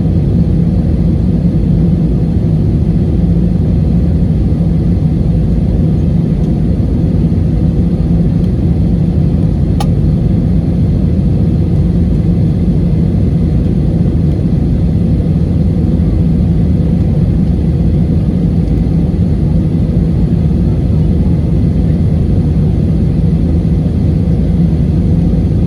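Airliner cabin noise: a steady low rumble of jet engines and airflow heard from a passenger seat, with a single brief click about ten seconds in.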